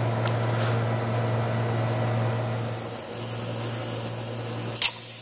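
Steady low hum, then from about halfway a high, even hiss of ham slices starting to sizzle in a frying pan on a gas burner, with one sharp click near the end.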